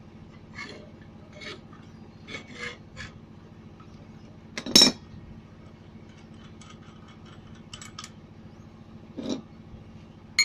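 Adjustable wrench and the steel lock nut of a motor-scooter centrifugal clutch being worked loose: scattered small metal clicks and scrapes, with one loud metallic clank about five seconds in and a duller knock near the end.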